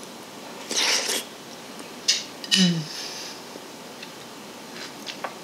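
A slurp of soup off a spoon about a second in, then a short hummed 'mm' of tasting.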